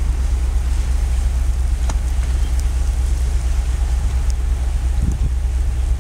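Steady low rumble with an even hiss of wind and sea over it, heard from high on a ship's deck; a few faint ticks and a brief low scuff about five seconds in. No dolphin whistles stand out.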